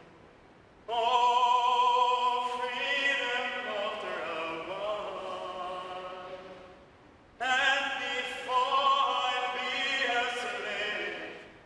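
Sung church music: a voice singing with vibrato in two long phrases, the first starting about a second in and the second after a short break about seven seconds in.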